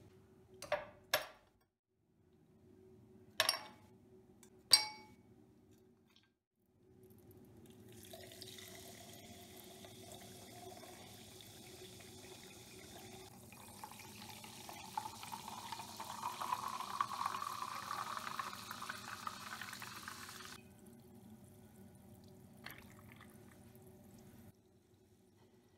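A few glassy clinks, then liquid poured steadily into a glass for about twelve seconds, its pitch rising as the glass fills.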